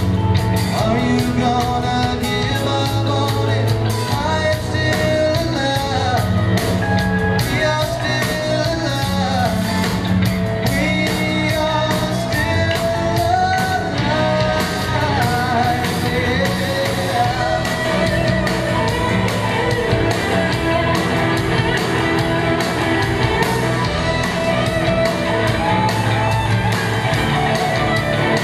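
Live rock band playing: electric guitars over drums, full and steady with melodic lines moving on top.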